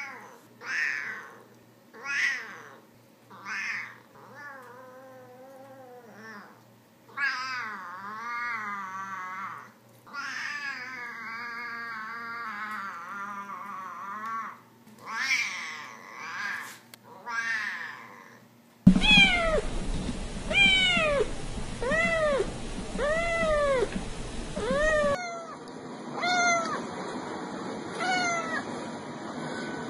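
Siamese cat meowing over and over: a few short meows, then long meows that waver up and down in pitch. Near the end, other domestic cats meow in a quicker run of short rising-and-falling meows, about one a second.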